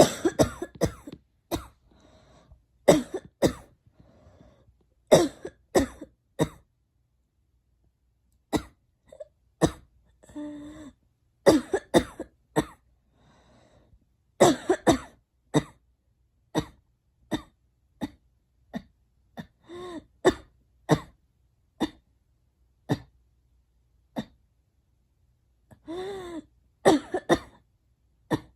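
A girl coughing over and over: short, sharp coughs, sometimes single and sometimes in quick runs of two to four, with pauses of up to a couple of seconds between. Some coughs are voiced.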